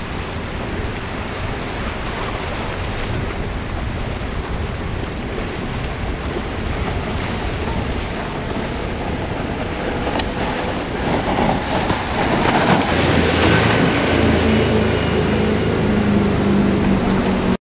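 Formula cruiser running at speed through choppy water: a steady wash of waves and wind on the microphone, with the low hum of the boat's engines coming up louder past the middle of the stretch as a boat passes close.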